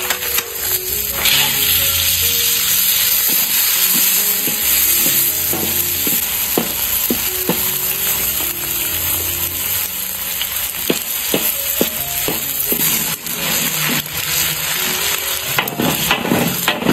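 Crayfish sizzling and frying in a hot iron wok, with a steady hiss. Scattered clicks and scrapes come from a wooden spatula stirring them, thickest in the middle and again near the end.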